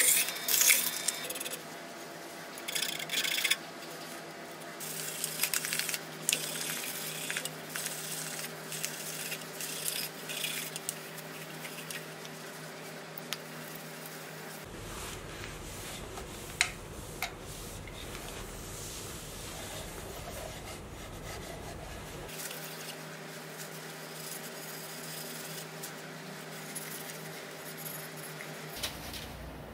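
Wood lathe running with a steady hum while the spinning wooden bowl is hand-sanded, a loud sanding hiss in the first few seconds, then rubbed with a cloth to apply finish: quieter rubbing with scattered light clicks.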